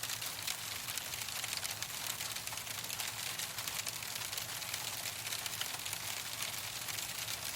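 Hailstones falling steadily on a hard surface: a dense, continuous patter of many small sharp ticks over a hiss.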